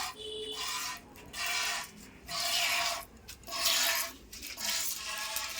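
Jets of milk squirting into a bucket as a Jersey cow is milked by hand, a rhythmic hiss at about one squirt a second.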